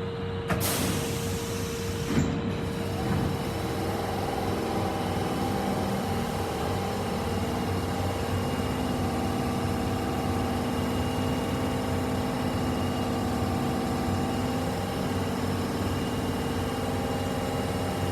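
Tanimachi Line 22-series subway car: a sudden burst of noise about half a second in and a smaller one about two seconds in, then a steady mechanical hum holding several constant tones.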